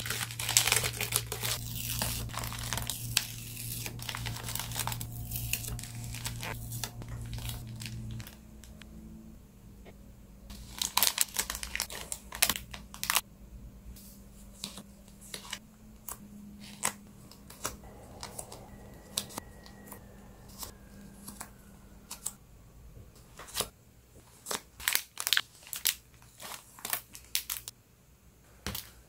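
Plastic and paper packaging crinkling and tearing by hand, an irregular run of crackles and sharp rustles.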